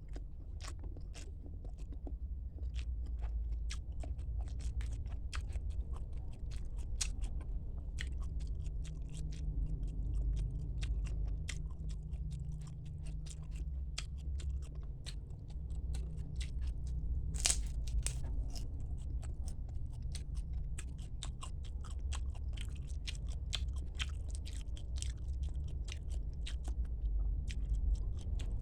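Close-miked chewing and biting, with many small wet mouth clicks and crunches from eating tilapia and spinach, over a steady low hum. One sharper crunch stands out a little past halfway.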